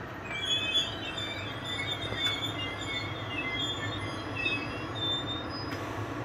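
SBB IC 2000 double-deck coaches rolling slowly past with their steel wheels squealing in several high tones over a steady low rumble. The squeal starts just after the beginning and stops near the end, with one short click about two seconds in.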